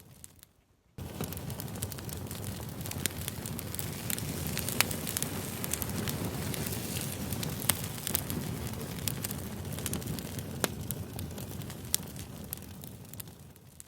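Campfire crackling: a steady rush of burning wood with frequent sharp pops and snaps. It drops out briefly about a second in and fades down again near the end, like a looped recording.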